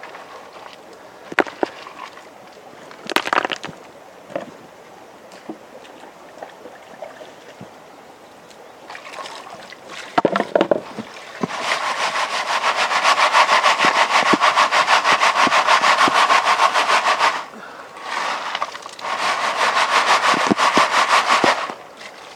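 Gravel and stones being dug out of the streambed and worked into a gold pan. First a few scattered knocks of stone, then two long stretches of rapid, even scraping and rattling of gravel, the first from about midway and the second near the end.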